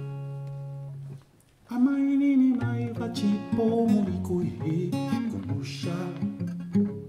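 Acoustic guitar: a chord rings out and fades, a brief pause, then the guitar starts a Zimbabwean folk song and a man sings with it from about two seconds in.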